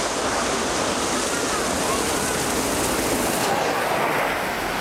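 Steam-hauled mainline train behind the A1 Pacific 60163 Tornado passing close by: a steady, loud rush of train noise that eases off near the end.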